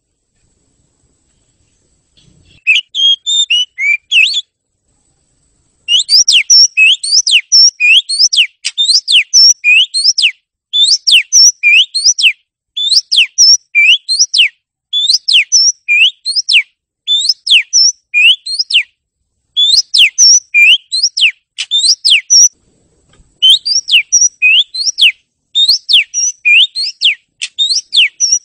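Oriental magpie-robin (kacer) in full song: loud, clear whistled notes in short phrases of about a second, repeated one after another with brief pauses. It starts after about two seconds of silence. This is the kind of vigorous song birdkeepers play to set a silent kacer singing.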